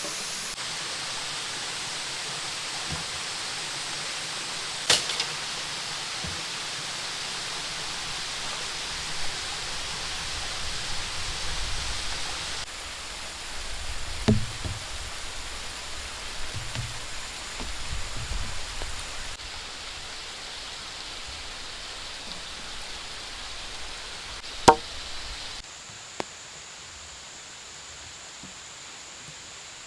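Steady rushing outdoor background noise with a thin high steady tone, changing abruptly several times, broken by a few sharp knocks (the two loudest about 5 and 25 seconds in) and some duller low thumps in the middle.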